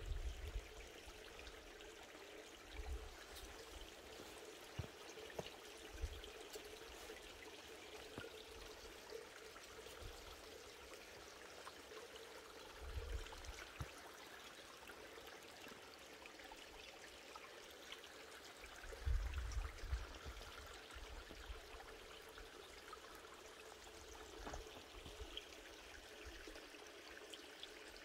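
Mountain stream trickling and flowing over rocks, a faint steady hiss of running water. A few brief low rumbles break in, the strongest about two-thirds of the way through.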